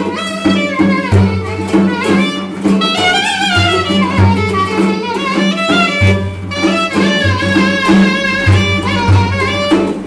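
Turkish folk dance tune played live on clarinet, cümbüş and frame drum. The clarinet carries a melody full of bends and trills over the plucked cümbüş and a repeating beat on the drum.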